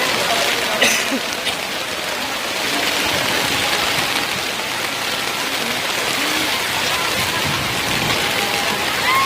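Heavy rain pouring steadily during a storm, with a sharp knock about a second in.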